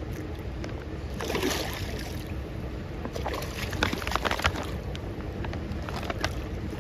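Hatchery rainbow trout splashing and thrashing at the surface of the pond in a feeding frenzy, in bursts about a second in and again around three to four seconds in.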